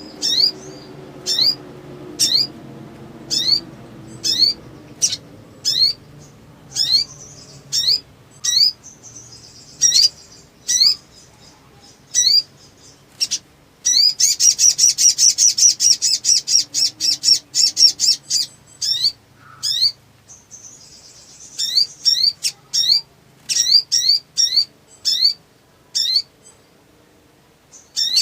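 Sogon (sogok ontong) bird calling excitedly: sharp, upward-sweeping chirps repeated about once or twice a second. Partway through they give way to a loud, fast rattling trill lasting about four seconds.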